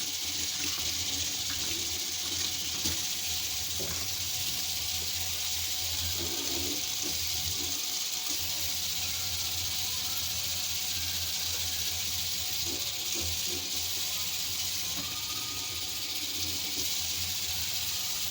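Water running steadily from a tap, an even rushing hiss, with a few light knocks.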